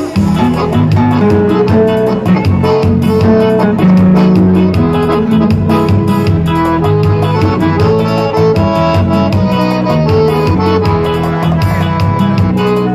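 Electronic arranger keyboard played live: an instrumental intro with a held-note melody over a steady bass line and beat.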